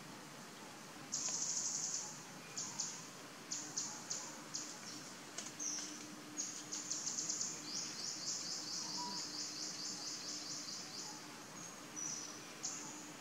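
Forest ambience: high-pitched chirps and trills, each made of rapid pulses, coming in short bursts, with a longer run of trills past the middle, over a faint steady hum.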